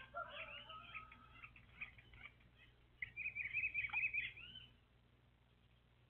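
Small songbirds calling: a string of chirps and short whistled notes in the first two seconds, then a fast twittering song about three seconds in that lasts over a second and is the loudest part.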